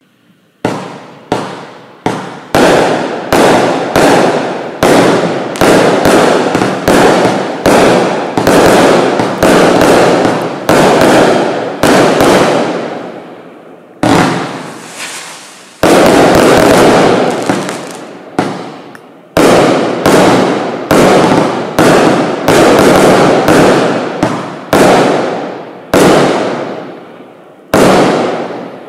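Bright Star Bloodlust 88-shot compound barrage firework cake firing: sharp bangs one after another, about one or two a second, each trailing off before the next. The first shot comes suddenly after silence about half a second in, and some stretches run denser with shots overlapping.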